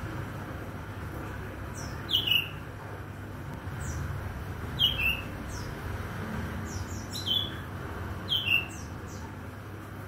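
Oriental magpie-robin (kacer) calling: short phrases, each a high thin note then a brief falling whistle, about four times, over a steady low background rumble.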